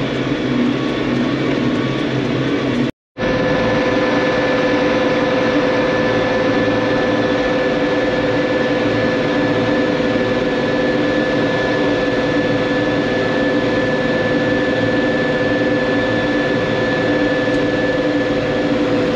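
Tractor engine running steadily under load. About three seconds in the sound drops out for a moment, then carries on with a steady high whine over the engine.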